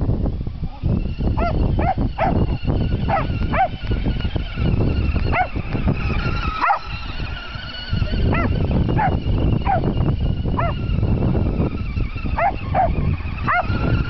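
Small Jack Russell–dachshund mix dog giving about fifteen short, high yipping barks at irregular intervals: excited barking as it chases a remote-control toy truck.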